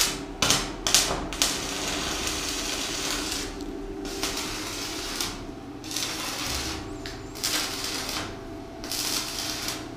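Electric arc welding on a steel pipe joint. The arc crackles and hisses in runs of about half a second to two seconds, breaking off and restriking several times as the joint is welded around.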